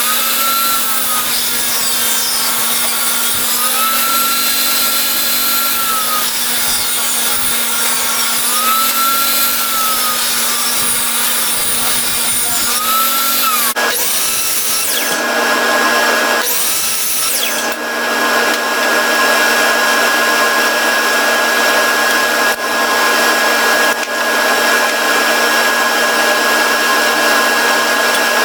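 A woodworking power tool running loudly while it works wood. Its pitch dips and recovers several times in the first half, then it stops briefly twice about halfway through before running steadily again.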